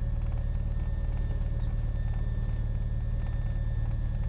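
Cessna 182 Katmai's engine and propeller running with a low, steady drone at takeoff power.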